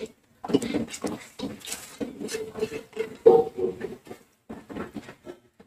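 A spoon stirring watery beef curry in an aluminium pressure cooker, scraping and clinking against the pot in a quick, irregular run of short strokes.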